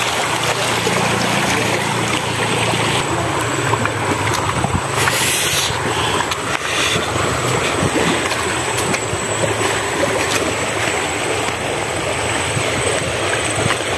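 Shallow river rushing over stones in a steady wash, with a few light clicks of sandalled footsteps on the river cobbles.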